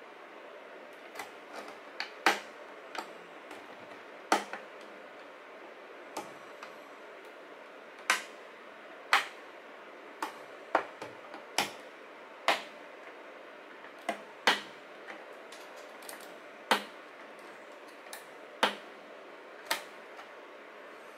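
Plastic snap clips of a WD Black D10 external hard drive enclosure clicking as a small screwdriver pries along the case seam. The clicks are short and sharp, about one a second at uneven spacing, some much louder than others.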